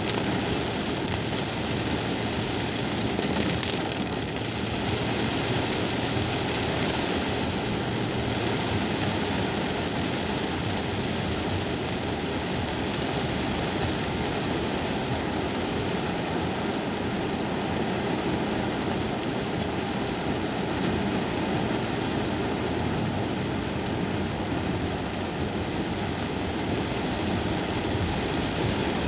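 Heavy rain falling on a car's roof and windshield, heard from inside the cabin, over the car's engine and tyres on a wet road; a steady, even hiss.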